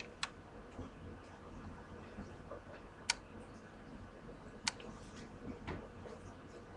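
A few sharp, single clicks at uneven gaps over faint room noise.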